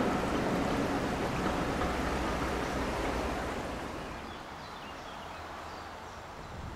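A passing train dying away into the distance, its low rumble fading steadily over the first four seconds or so and leaving a quiet outdoor hush with a few faint bird chirps.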